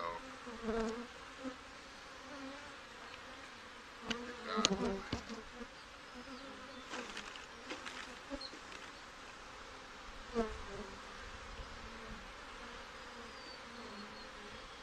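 Honey bees humming steadily over an open hive box of a strong, crowded colony. A couple of brief knocks come through, about four and a half and ten seconds in.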